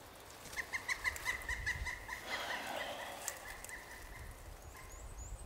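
A bird calling a quick run of short repeated notes, about six a second for under two seconds, followed by a faint rustle and a few small high chirps near the end.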